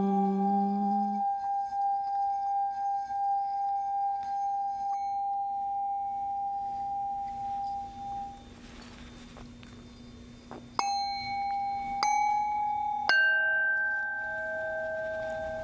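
A chanted Om ends about a second in while a metal singing bowl, rubbed around its rim with a wooden mallet, rings one steady tone that dies away about eight seconds in. Then singing bowls are struck three times, about a second apart, each strike ringing at its own pitch and lingering.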